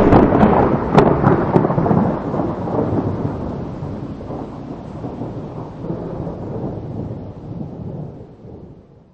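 A long rumble like a thunderclap, with a few sharp crackles in the first two seconds, dying away slowly and fading out near the end.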